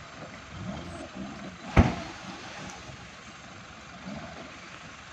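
Road traffic and vehicle engines running, with one sharp knock about two seconds in.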